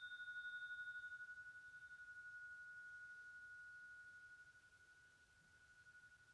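A tuning fork rings out with one clear, high, pure tone, slowly fading with a slight wavering pulse. Its fainter upper tones die away within the first couple of seconds.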